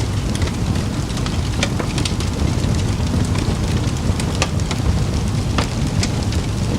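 Campfire burning: a steady low rumble of the flames with irregular sharp crackles and pops from the burning wood.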